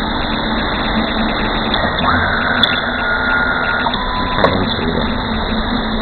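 EW-06F coaxial wire stripping machine running with a steady motor hum as a coaxial cable is stripped in its rotary blade head. A higher whine comes in for a couple of seconds near the middle, and there are two sharp clicks.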